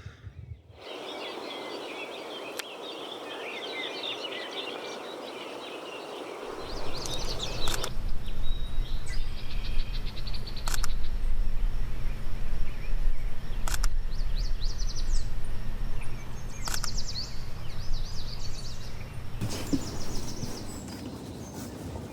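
Small birds singing and calling outdoors, with many quick chirps and trills. About six seconds in, a steady low rumble starts and stays under the birdsong.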